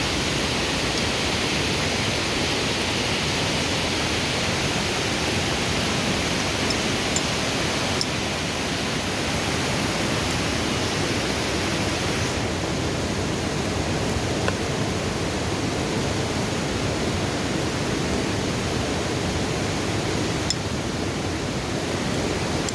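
Steady rushing of water, a continuous even hiss; the highest part of the hiss drops a little about twelve seconds in.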